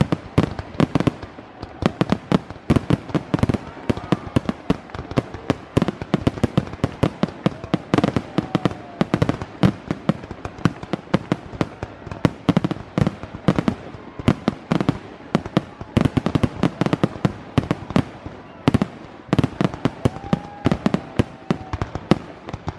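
Fireworks display: a dense, continuous run of sharp bangs and pops, several to a second, with no let-up.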